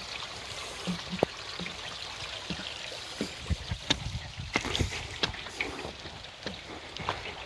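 Footsteps on a woodland trail, irregular knocks and crunches over a steady rush of running water.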